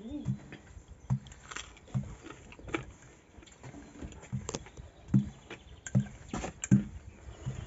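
Glass wine bottle used as a rolling pin, rolling out pizza dough on a board: a series of short, irregular knocks and thuds.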